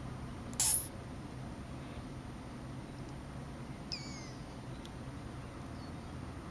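Baby box turtle giving a short, sharp hissing sneeze about half a second in, then a brief high squeak about four seconds in. These are the airway-clearing noises of a turtle that has inhaled a piece of slug, which the owner says is not a respiratory infection.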